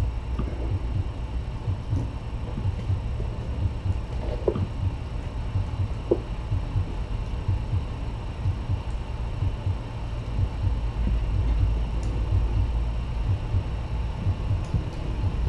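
A steady low pulsing hum, with a few faint clicks.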